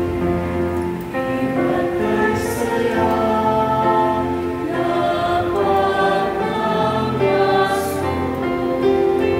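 Small mixed choir of women and men singing a Tagalog hymn together, holding long notes in chords.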